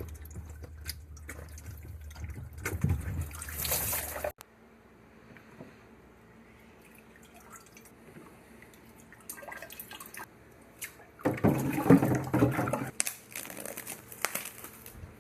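Water dripping and splashing from under-sink water filter housings as they are unscrewed, with scattered clicks and knocks of handling the housings. A louder burst of splashing and handling noise comes about eleven seconds in.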